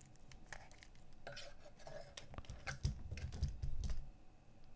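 Handling noise from small plastic kit parts: light clicks and taps as yellow DC gear motors with their wire leads are moved about and set down, with a few soft thumps about three seconds in.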